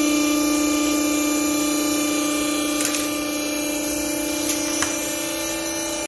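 Vertical hydraulic baler's power unit (electric motor driving the hydraulic pump) running with a steady hum. A few light knocks come about three seconds in and near the end.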